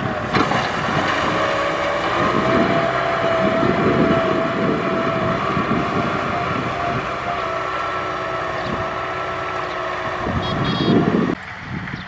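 Kubota M6040SU tractor's diesel engine working under load as it pulls a disc plough through stubble, with a steady high whine over rough, uneven low noise. About eleven seconds in it drops abruptly to a quieter, more distant engine sound.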